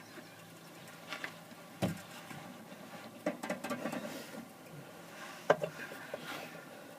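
Scattered light knocks, clicks and rustles of objects being handled, with a brief patch of quick tapping in the middle and a sharper knock near the end.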